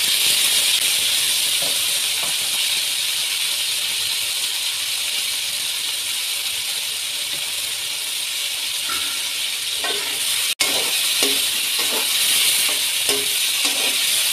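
Sliced onions sizzling steadily in hot oil in an aluminium pot. From about ten seconds in come short knocks and scrapes as they are stirred, with a momentary drop-out in the sound just after.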